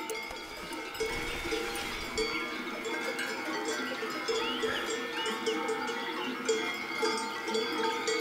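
Many cowbells clanging irregularly, with overlapping strikes that ring on: a recording of alpine cowbells played by a motion-triggered sound box.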